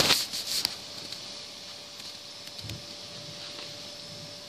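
A hardback book being handled: a sharp knock at the start, then a brief rustle and rub of the book's cover and dust jacket, and a soft thud in the middle. A faint steady hum runs underneath from about a second in.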